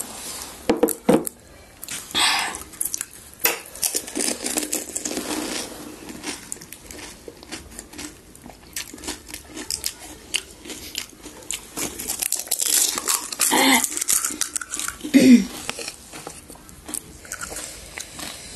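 People eating pani puri: crisp fried puri shells cracking and crunching between bites, with clinks of plates and utensils.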